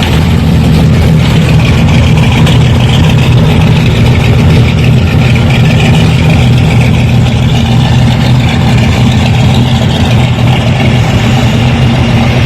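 Car engine idling steadily with a loud, low, even hum.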